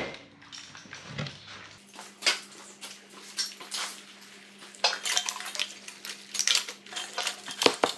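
Wiring loom and its plastic plugs clicking and rattling as the harness is handled and laid over an engine, an irregular string of light clicks and knocks. A steady low hum starts about two seconds in.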